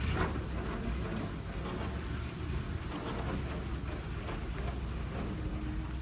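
1937 Ford fire truck's flathead V8 running as the truck drives slowly across grass, a steady low rumble heard under crackling noise, with a sharp crack right at the start.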